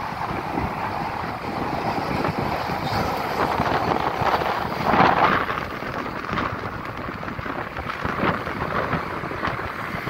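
Wind buffeting the microphone over steady road traffic, with a car passing close and loudest about halfway through.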